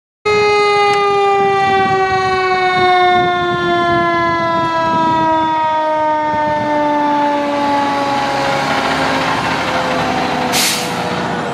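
Fire truck's mechanical siren winding down: one steady tone sliding slowly lower in pitch the whole time, with engine and road noise growing beneath it. A short burst of hiss comes near the end.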